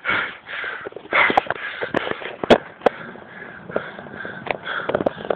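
Cyclist breathing hard under the effort of a steep climb, in uneven noisy gasps, with sharp clicks and rubbing from the phone being handled against the jersey and handlebar.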